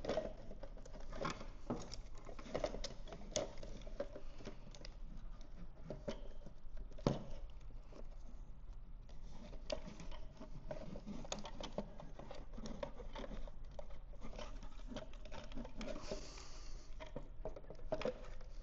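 Handling noise from pushing a filter sock onto a fuel pump in its plastic housing: a run of soft, irregular plastic taps, scrapes and rustles, with one sharper tap about seven seconds in. The sock pushes on without a snap-fit click.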